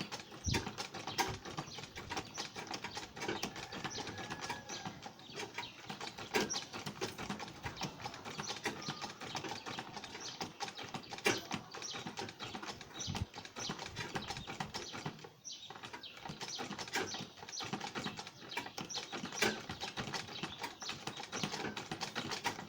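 Sewing machine stitching: a dense run of rapid needle clicks, with a brief pause about fifteen seconds in.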